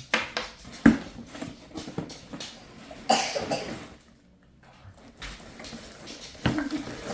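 Plastic toy parts and packaging being handled while unboxing: scattered knocks and clicks of pieces set down or bumping together, with one sharper knock about a second in and a brief noisy rustle-like burst about three seconds in.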